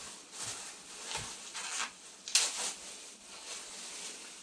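Thin plastic produce bag rustling and crinkling in several short crackles as a pear is worked out of it by hand, the loudest a little past two seconds in.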